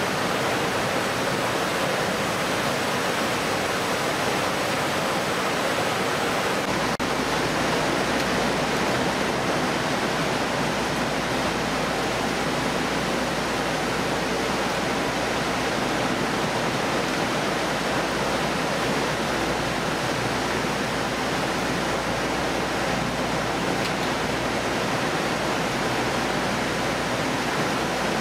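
Steady rushing noise of a shipboard fish-processing line: running water and machinery, with a faint high steady tone. A low hum joins about seven seconds in.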